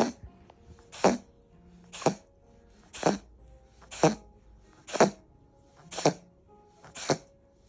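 A cat making short, forceful sneeze-like coughs, eight in a row at a steady pace of about one a second. It is unclear whether these are coughs or sneezes.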